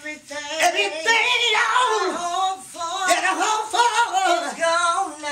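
Men singing into microphones in an R&B style, the voices sliding up and down through long drawn-out notes, with no backing beat heard.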